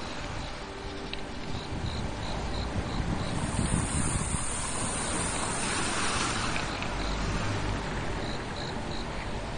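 Steady rushing noise of wind on the microphone outdoors, with low buffeting in places and a faint, regular high chirping about three times a second.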